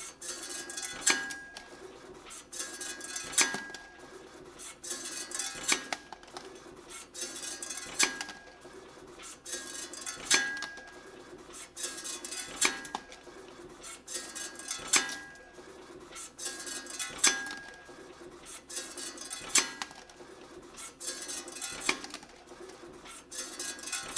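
YHM FMB-1 CNC wire bending machine running, forming long-hook springs from wire: a cycle of sharp metallic clicks and clinks with a brief ring repeats about every two and a half seconds, about ten times, over a steady machine hum.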